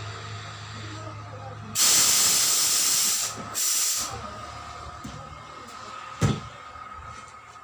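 Compressed air hissing out loudly in two bursts, the first about a second and a half long and the second shorter, followed a couple of seconds later by a single knock.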